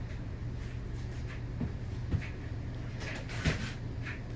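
52-inch Emerson Premium ceiling fan running with a steady low hum. Two short knocks come about two and three and a half seconds in.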